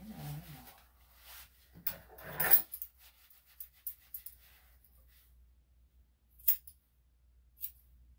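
Grooming scissors trimming a small dog's fur: a few sharp, scattered snips in the second half. Before them, about two seconds in, comes a brief, louder rustling noise of handling.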